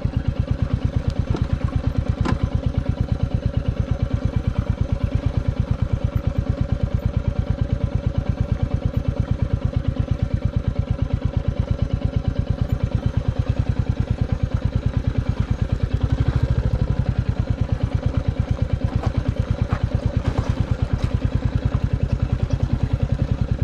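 Royal Enfield Classic 350 Reborn's single-cylinder engine running at low, steady revs with an even beat, as the bike is ridden slowly over a rough dirt track. A few short sharp clicks come through, about two seconds in and again near the end.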